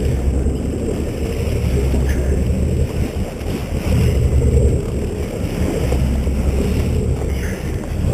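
Boat under way at sea: a steady low engine drone with wind buffeting the microphone and water rushing past the hull.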